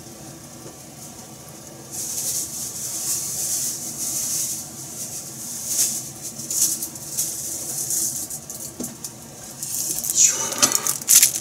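Crinkly rustling of something being handled, coming in irregular bursts from about two seconds in and growing louder near the end.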